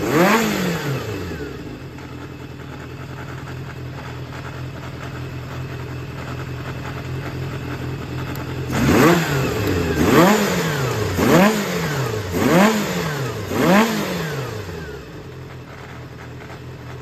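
Yamaha XJR400 (4HM) air-cooled inline-four engine idling, blipped once at the start, then revved in five quick throttle blips about a second apart before settling back to a steady idle. The seller lists it as running without abnormal noise.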